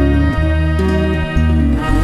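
Background music: a song's instrumental passage with guitar over a steady bass line.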